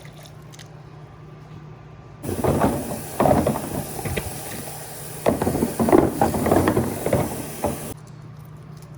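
Water running hard from a kitchen tap, turned on about two seconds in and shut off near the end, with irregular knocks and clunks among it, as jars are washed at the sink.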